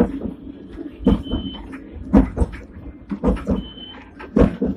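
Hong Kong double-decker tram running along its track, heard from inside the lower deck: a low rumble and rattling of the car body, with a sharp knock about once a second. Two short high-pitched tones sound, one about a second in and one near the end.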